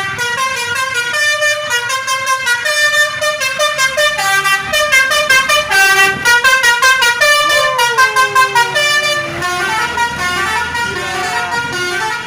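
Indonesian bus's Basuri telolet horn playing a fast multi-tone melody, its notes stepping quickly up and down. A long sliding note falls in pitch about halfway through.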